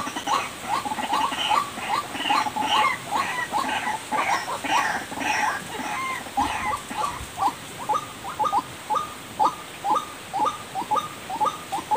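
White-breasted waterhen (ruak-ruak) calls: a long run of short, repeated notes at about two to three a second, with a second, higher-pitched series of calls over the first half.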